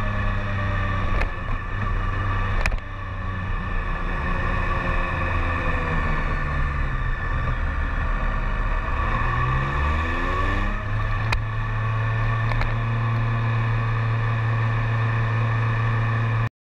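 BMW K1300S inline-four engine heard onboard while riding. The engine note drops as the bike slows, then rises sharply as it pulls away again about ten seconds in, and settles into a steady cruise.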